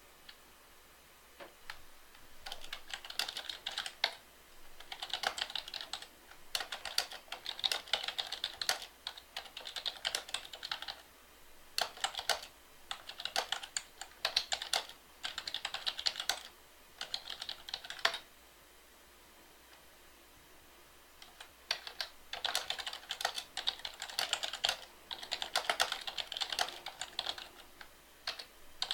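Typing on a computer keyboard in quick runs of clicks, each run a second or two long, with a pause of about four seconds partway through.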